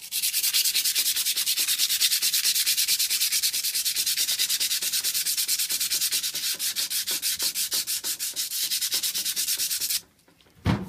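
Green abrasive sheet rubbed by hand over the flat face of a round aluminium block in rapid, even back-and-forth strokes, scuffing off the tarnish. The rubbing stops about a second before the end, followed by a single knock.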